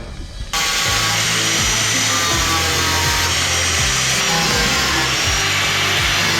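A power tool cutting sheet steel, starting abruptly about half a second in and running steadily, heard over background music with a steady beat.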